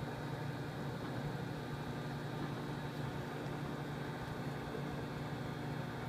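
Microwave oven running with a steady, even hum, its turntable turning.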